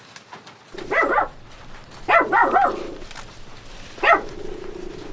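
A dog barking in three short bouts: about a second in, a quicker run of barks about two seconds in, and one more about four seconds in.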